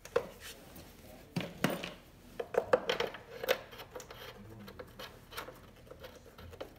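Plastic timing belt cover being worked back into place on a Volvo five-cylinder engine, knocking and clicking against the engine in a string of sharp hits, loudest between about one and a half and three and a half seconds in.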